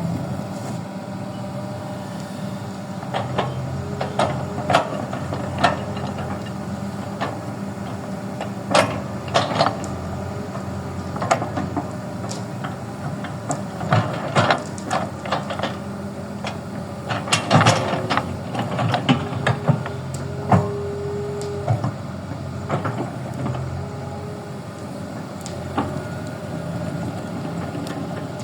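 Toy Kobelco excavator at work in soil: a small motor hums steadily under frequent irregular clicks and knocks, with a cluster of knocks about two-thirds of the way through.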